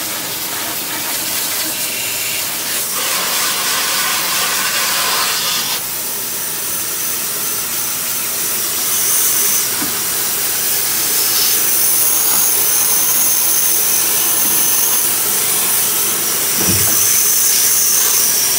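Pressurized spray hissing steadily from a blue-capped spray can aimed at a freezer condenser coil. A thin high whistle joins about halfway through.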